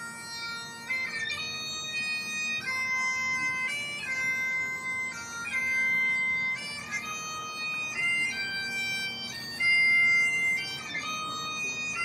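Bagpipes playing a slow melody of held notes over steady drones.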